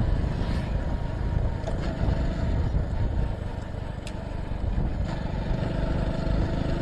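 Motorcycle riding along at road speed: engine running steadily under a low rumble of wind and road noise.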